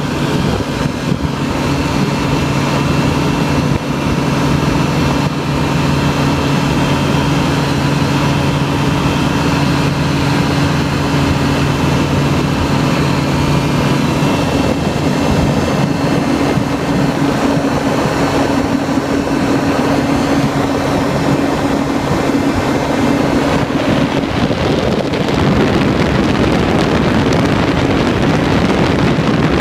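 Small open-cockpit ultralight aircraft engine droning steadily in low, slow flight, with wind rushing over the microphone. The engine tone fades under the wind rush in the last few seconds.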